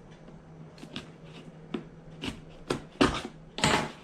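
Cardboard and plastic packaging being handled while a box is opened: scattered light taps and clicks, then two louder rustling scrapes about three seconds in and near the end.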